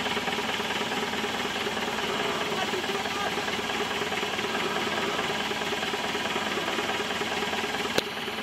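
Steady mechanical running with a fine rattle from an off-road Jeep being winched up a muddy track. A single sharp click comes near the end.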